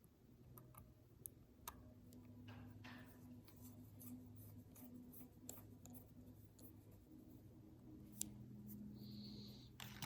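Faint scattered clicks and taps of a small digital watch and tools being handled on a bench, with one short high electronic beep about nine seconds in, like a Casio digital watch's button beep.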